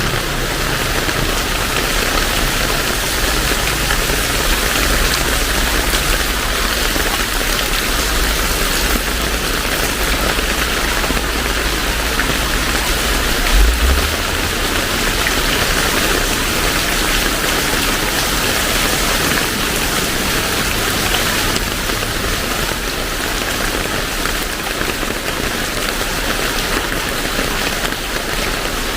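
Heavy rain falling in a steady, dense hiss. A low rumble sits under it for the first half and ends with a brief low thump about halfway through.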